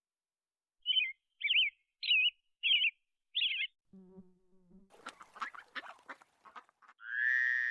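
Bird chirping: five short high chirps about half a second apart, then a brief low call and a run of rapid clicking chatter. Near the end a ringing chime starts.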